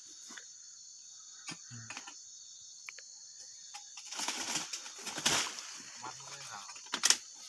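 Steady high-pitched insect buzz, with a burst of rustling foliage from about four seconds in and a sharp click near the end.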